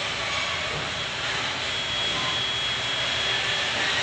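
Steady hiss of background noise, even and unchanging, with a faint high tone in it; no distinct clicks or knocks.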